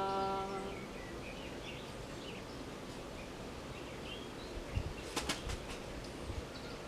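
The end of a long, steady voiced tone, the Qigong heart healing sound, fading out within the first second. Then quiet background with a few faint small sounds and a short cluster of sharp clicks about five seconds in.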